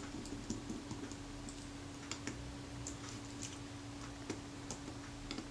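Jeweller's screwdriver driving tiny screws into a metal camera lens mount, with the parts handled between fingers: faint, irregular light metallic clicks and ticks over a steady low hum.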